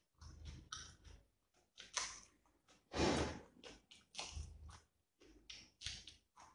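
Close-up chewing and lip-smacking of a man eating rice and beef curry by hand: irregular wet mouth sounds, with one louder, longer bout about three seconds in.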